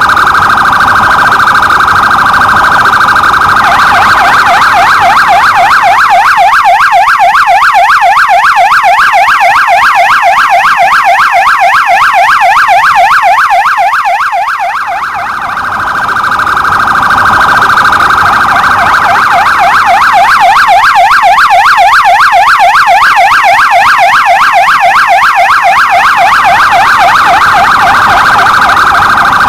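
Electronic police patrol-car siren sounding loudly. It switches between a steadier high tone and a rapid warbling yelp, several cycles a second, and dips briefly in loudness about halfway.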